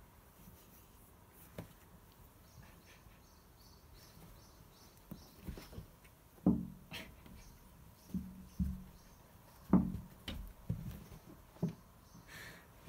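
Two cats play-fighting: soft scuffling with several sudden thumps of bodies and paws on a padded windowsill, loudest about six and a half and ten seconds in.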